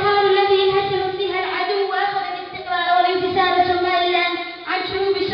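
A girl's voice singing in long, held notes, phrase after phrase with short breaks between them.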